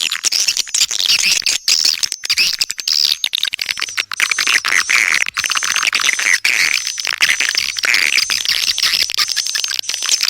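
Swiftlet lure-call recording: dense, rapid high-pitched twittering and chirping of edible-nest swiftlets, packed with quick clicks. A thin steady high whistle joins about four seconds in.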